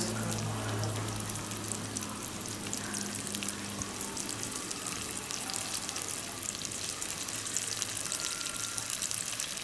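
Chopped onions sizzling in hot salted palm oil in a pan: a steady frying hiss with fine crackles.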